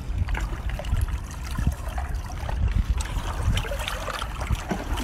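Steady rushing of sea water with wind rumbling on the microphone, and a few faint wet clicks as meat is worked out of a cooked conch shell.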